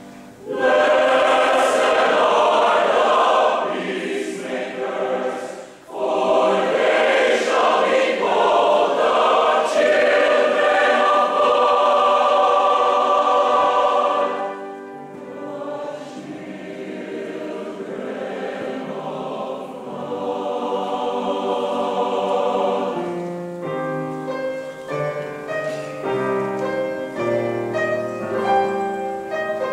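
Large combined mixed choir of men's and women's voices singing loudly in chords, with a short break for breath about six seconds in and a softer passage from about fifteen seconds. Near the end the singing thins and a piano's notes come to the fore.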